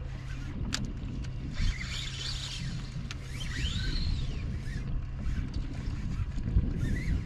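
Wind rumbling on the microphone aboard a small fishing boat on open water, over a steady low hum. There is a sharp click about three quarters of a second in, and faint squeaky tones that rise and fall at about two and four seconds in.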